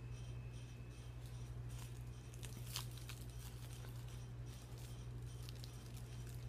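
Foil candy wrapper crinkling and tearing as a bonbon is unwrapped by hand, irregular crackles starting about a second in, over a steady low hum.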